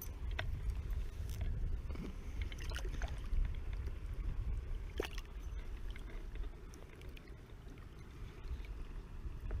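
Low, steady rumble of wind buffeting the microphone, with scattered light clicks and small splashes as a small rainbow trout is handled and unhooked at the water's surface.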